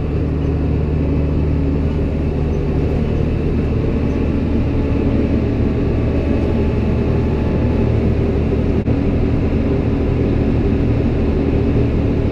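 Farm machinery engine running steadily, a deep, even drone.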